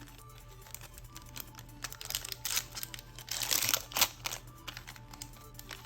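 Faint background music under the handling of Yu-Gi-Oh! trading cards and a foil booster pack: scattered light clicks, with a louder crinkly rustle a little past the middle.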